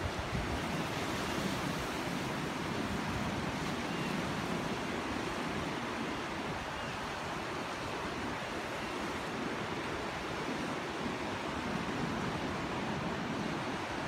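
Pacific Ocean surf breaking and washing over a rocky shore, a steady rushing.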